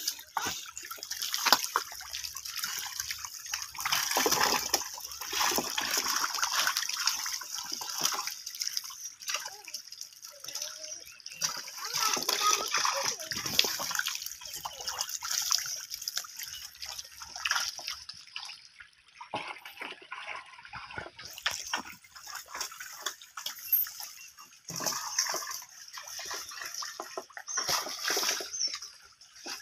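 Shallow muddy water splashing and sloshing irregularly as hands grope through the mud and water to grab small stranded fish.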